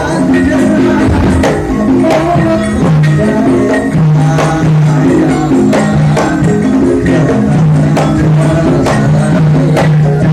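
Live Javanese gending music: sustained low melodic notes over a steady percussion beat.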